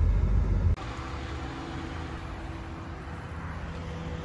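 A loud low rumble that cuts off abruptly under a second in, followed by the quieter steady hum of a car with a few faint steady engine tones.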